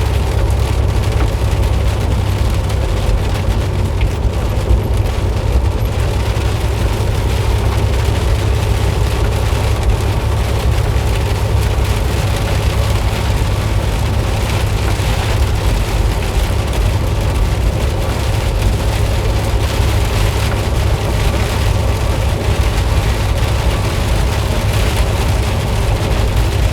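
Heavy rain pelting a semi truck, over the steady low rumble of its engine and tyres running at highway speed on a flooded road.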